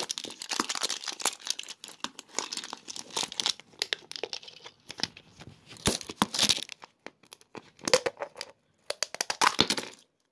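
Wrapping of a surprise egg and its toy being torn open and crumpled by hand: irregular crinkles and tears with short pauses between them.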